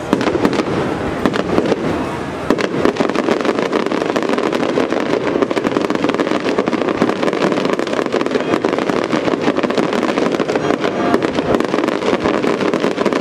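Aerial firework shells bursting in rapid, dense succession: a near-continuous stream of bangs and crackles, easing briefly about two seconds in before packing in again.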